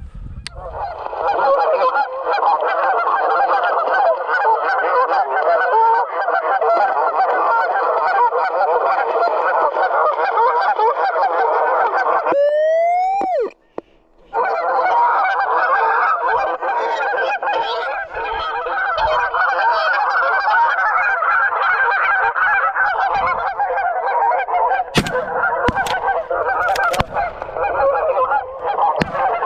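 A large flock of Canada geese honking in a dense, continuous chorus. The chorus breaks off for about two seconds about twelve seconds in, and a few sharp cracks cut through it near the end.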